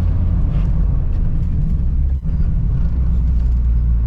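Car engine running at a steady speed, a continuous low rumble, with a brief drop about two seconds in.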